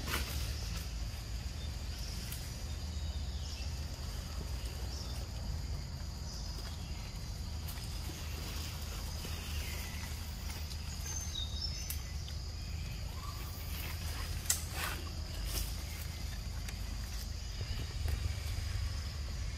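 Outdoor ambience: a steady high insect drone over a low rumble, broken by a few brief clicks or rustles, the loudest about two-thirds of the way through.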